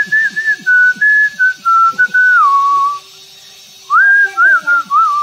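A whistled melody, most likely a background music track: a single clear whistled tone stepping up and down between notes in short phrases, with short low notes beneath. The whistling breaks off for about a second a little past halfway, then resumes.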